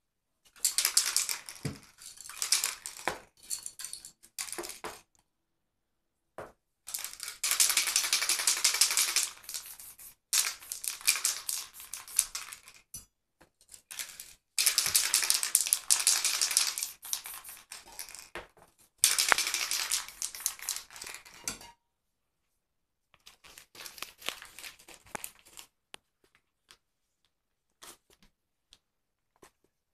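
Aerosol spray paint cans hissing in repeated bursts of one to four seconds with short breaks between, then fainter short sprays and a few isolated clicks near the end.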